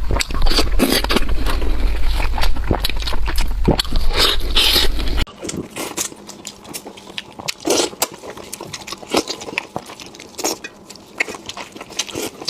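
Close-up eating sounds: biting and chewing a plum-sauce chicken drumstick, with many short sharp crunches and clicks as the cartilage is chewed. A low hum underneath cuts off abruptly about five seconds in.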